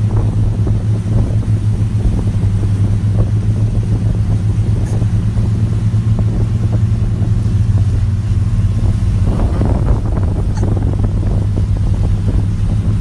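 Motorized watercraft engine running at a steady drone, with a deep low hum and wind and water noise over it, a little rougher about ten seconds in.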